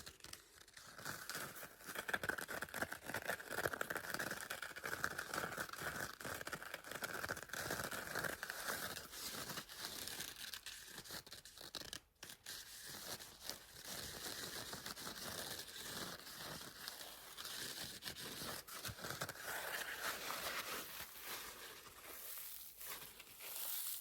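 Continuous scratching on a blue kitchen sponge, a dense, crackly rasp with a brief pause about halfway.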